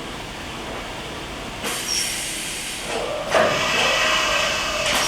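Sheet-metal sliding doors of a CNC machining center's enclosure rolled open along their track: a faint steady hum, then a sudden rushing, rattling slide about two seconds in. A louder one follows about three seconds in, with a metallic ring that holds until near the end.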